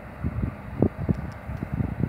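Wind buffeting the microphone in irregular low gusts over a steady low rumble.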